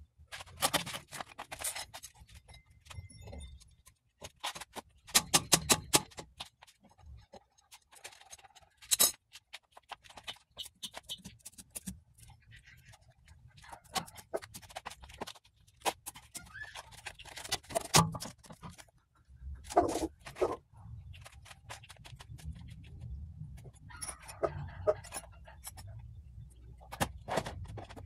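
Metal tools clicking, clanking and scraping against the car's underside while working at a seized CV axle stuck in a 2013 Mini Cooper Countryman's transmission. The sound comes in several runs of sharp clicks and knocks, with scraping and a low rumble in between.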